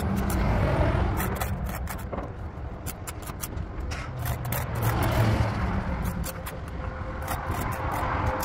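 Low rumble of motor vehicles, swelling twice as if passing, with scattered light clicks. A steady whine joins near the end.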